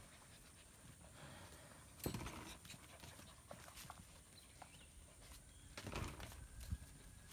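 Faint panting of a German Shepherd puppy, with small clicks and two brief louder rustles about two and six seconds in.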